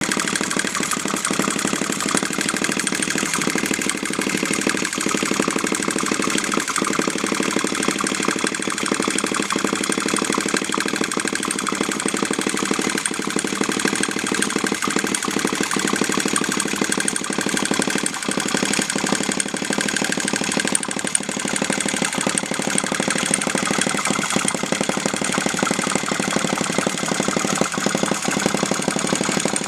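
Phil Duclos–design flame-licker (vacuum) model engine running steadily: a fast, even clatter as its valve and piston cycle and the burner flame is drawn into the cylinder on each stroke.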